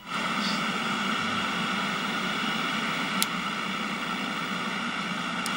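Steady electronic buzz with hiss from the vintage television test setup. It switches on suddenly with a click and then holds level, with a couple of faint ticks.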